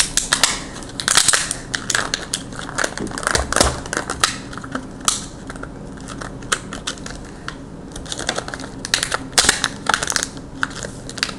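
Stiff plastic of an LOL Surprise toy capsule and its wrapping crackling and clicking irregularly as it is handled and pried open by hand.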